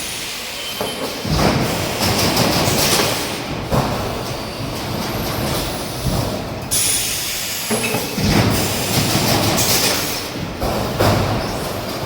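EPS 3D steel wire mesh wall panel machine running: a loud, uneven mechanical clatter that surges and clanks every second or two, with a few faint short high squeaks.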